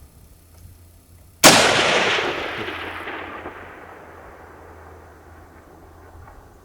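A single shot from a Swiss K31 straight-pull rifle in 7.5x55 Swiss, about a second and a half in. Its report rolls away in a long echo that fades over about three seconds.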